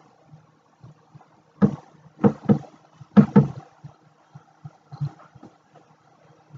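Several short knocks and taps from hands handling things on a lab counter, some in quick pairs, over a faint steady hum.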